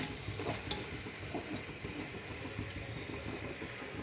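Jackfruit pieces in masala sizzling as they are sautéed in a pressure cooker, with a steel ladle stirring through them and giving a few light clicks against the pot about half a second in.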